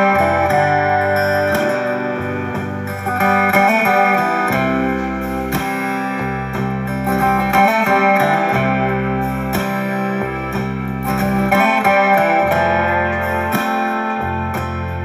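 Background instrumental music led by guitar, playing steadily with a changing bass line.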